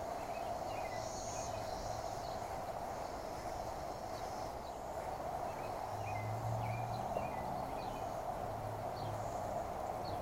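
Cicada chorus: a steady, unbroken drone, with a few short bird chirps over it.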